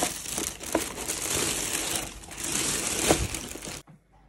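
Thin plastic carrier bag crinkling and rustling as it is handled and pulled off a pizza box; the sound stops abruptly near the end.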